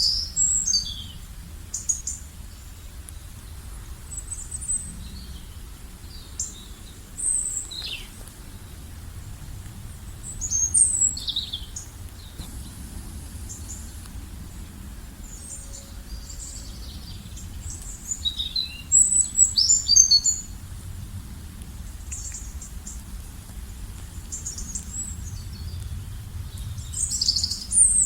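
Small birds chirping and calling in short high phrases, coming in scattered clusters, over a steady low rumble.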